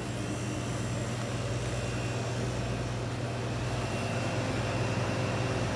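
Newly installed half-horsepower refrigeration compressor and condenser fan running with a steady low hum, just after start-up, with the compressor working hard to pull down a warm cabinet.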